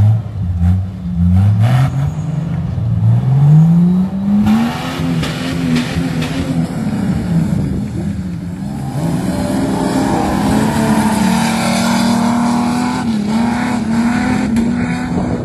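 Off-road 4x4 engine revving hard in several rising bursts, then held at steady high revs with small rises and falls.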